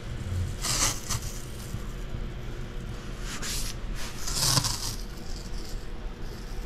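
Masking tape being pulled off the roll and laid down, making short ripping rasps: one about a second in and two more around three and a half to five seconds in.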